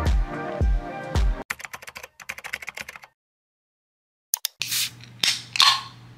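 Background music with a beat, then quick typing on a laptop keyboard, rapid light clicks for about a second and a half. After a second of dead silence come a few sharp clicks and short rustling handling noises.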